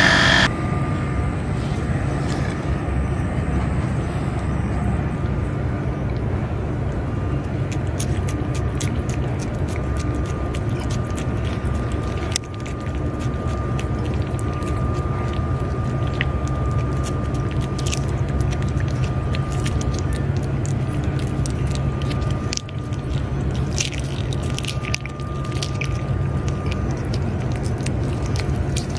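A cat licking and chewing paste squeezed from a treat tube, heard as a run of small, wet, irregular clicks over a steady low rumble.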